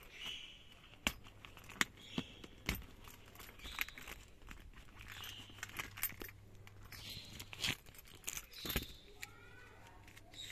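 A car key in a small leather key case jangling and clicking as the case is handled, opened and set down. There is a string of sharp clicks from the key and the case's press-stud snaps, with light rustling between them.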